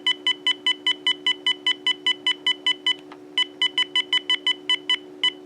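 Uniden EXS2080 cordless handset key beeps as a scroll key is pressed over and over, about five short beeps a second, stepping through the characters one at a time. The run pauses briefly about three seconds in, then carries on. A faint steady low hum runs underneath.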